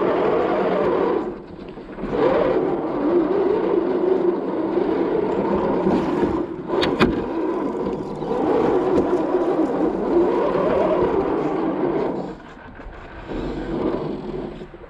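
Axial SCX10 II 1/10-scale RC crawler's electric motor and gear drivetrain whining, the pitch rising and falling with the throttle. It lets off about a second in and again near the end, and a single sharp click comes around the middle.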